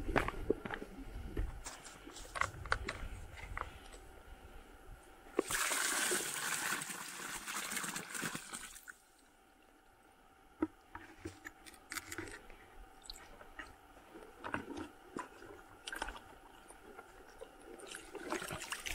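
Water splashing and trickling, with scattered small knocks and clicks. About five seconds in, a louder stretch of splashing lasts some three seconds, then stops suddenly.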